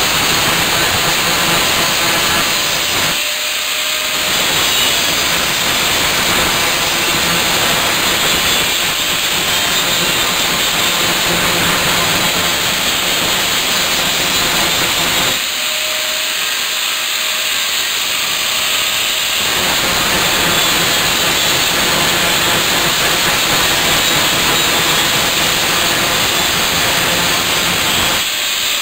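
Angle grinder grinding the steel frame: a loud, steady hiss of abrasive disc on metal. It eases off briefly about three seconds in, and again for several seconds past the middle, leaving only the motor's whine.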